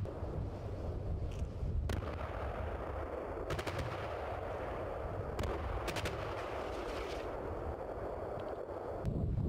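Gunfire: a single shot about two seconds in, short rapid bursts of automatic fire around three and a half and six seconds in, and more single shots, over a steady background rush.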